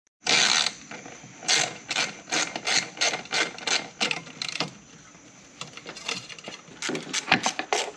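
Hand ratchet wrench clicking in a run of short strokes, about two to three a second, then a quick cluster of clicks near the end, while the intake plumbing is taken apart.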